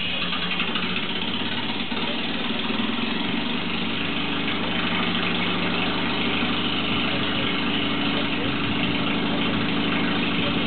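An engine idling steadily, its hum settling into an even tone about three seconds in.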